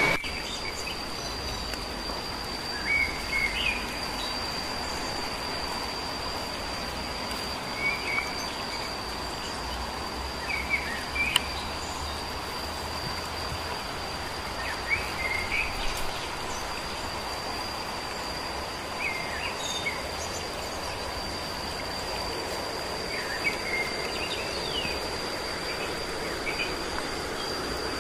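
Outdoor ambience: a steady high-pitched insect drone with short bird chirps every few seconds over an even background hiss.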